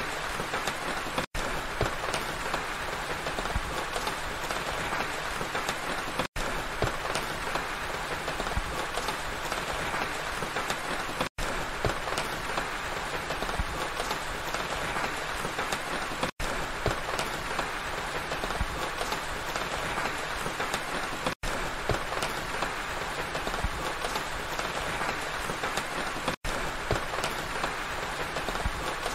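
Steady rain falling, with many small drop impacts pattering through it. It is broken by a brief silent gap about every five seconds.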